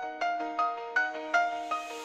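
Background music: a light melody of short, bright notes, each fading quickly, about three notes a second.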